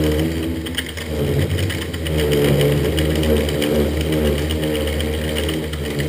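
Titan TM25V milling machine's 1000 W spindle motor running under load as a 13 mm high-speed steel drill bit cuts through steel on hand quill feed, with coolant and smoke. A steady low hum with a wavering cutting whine, easing about a second in and building again around two seconds.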